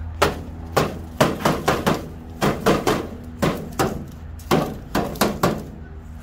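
A long catch pole banging against a rain gutter and downspout: a series of sharp knocks in quick, irregular clusters, done to flush out any iguanas hiding in the gutter.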